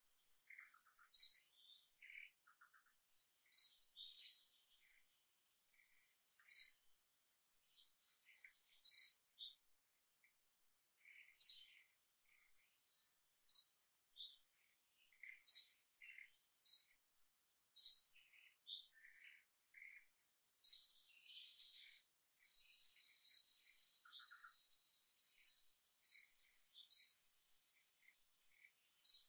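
Birds chirping: short, sharp, high calls repeating every one to two seconds, over a thin, steady high insect whine. The chirping thickens into a denser chatter about two-thirds of the way through.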